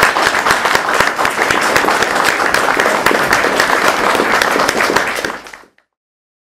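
Audience applauding, many hands clapping at once, until the sound cuts off abruptly about five and a half seconds in.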